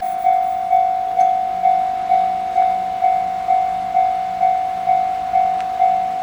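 Japanese railway level crossing's electronic warning bell ringing: a single ringing tone struck evenly about twice a second, the alarm that sounds while the crossing is closed for an approaching train.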